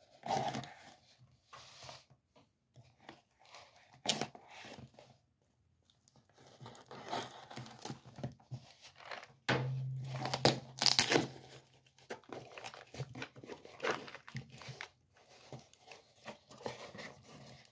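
Packing tape on a cardboard box being slit with a folding knife and torn away, then the cardboard flaps scraping and rustling as the box is pulled open. Short separate rips and scrapes, with a longer, louder stretch of tearing about ten seconds in.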